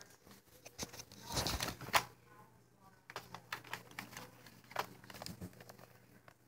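Handling noise close to the microphone: scattered clicks and rustles, with a louder rustling burst about a second and a half in that ends in a sharp click.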